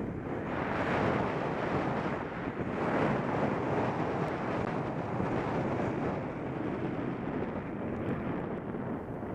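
Wind rushing over the microphone of a camera mounted on a road bike descending at speed, a steady noise that swells and eases without any engine or voice.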